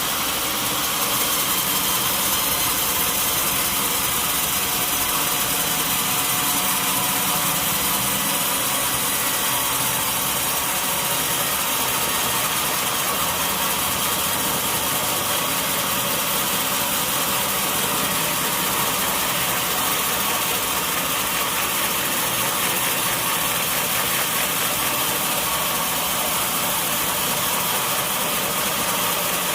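Sawmill machinery running steadily: a continuous mechanical drone with a strong hiss, without breaks or knocks.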